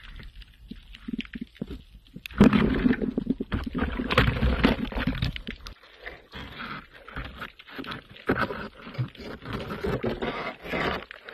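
Muffled water noise from a camera held underwater: irregular rushing with many small clicks and knocks, louder from about two seconds in.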